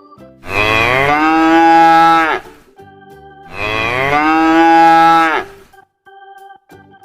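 A cow mooing twice: two long, loud calls of about two seconds each, rising at the start, held, then dropping away at the end. Soft background music of held notes plays between them.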